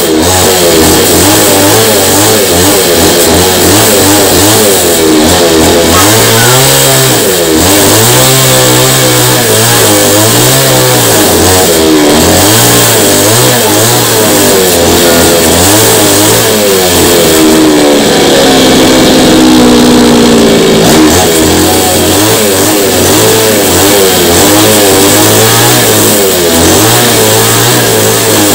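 Two-stroke chainsaw running under load as its bar is swept flat across a trembesi (rain tree) root slab to level the rough surface. The engine pitch rises and falls over and over as it cuts.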